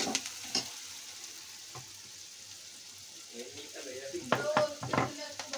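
Onion and spice masala frying in oil in a steel kadai, sizzling while a steel spoon stirs it. The spoon clinks and scrapes against the pan, with a few sharp strikes about four to five seconds in.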